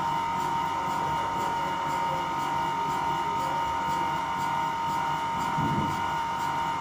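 Steady machine hum from running MRI magnet-room equipment during a liquid helium fill, with a constant high whine and an even hiss underneath.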